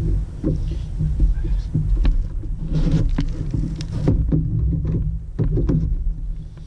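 Roosterfish thrashing and splashing at the side of a plastic kayak as it is grabbed by hand, with scattered knocks and splashes over a steady low rumble of wind and water.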